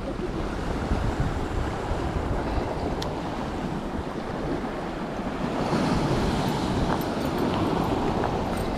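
Sea surf washing against shoreline rocks, a steady wash that swells a little louder about halfway through, with wind buffeting the microphone.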